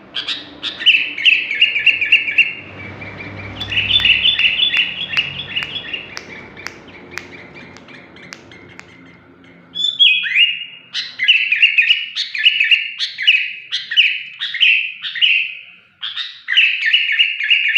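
Sooty-headed bulbul (kutilang) singing shrill, repeated chirping phrases. Each phrase is a quick run of bright notes. The song softens over a low background rumble for a few seconds, then comes back strongly from about the middle.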